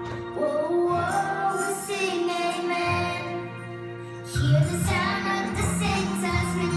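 Recorded Christian rock song with singing over sustained chords. It drops back in the middle, then grows louder about four and a half seconds in as the full band returns.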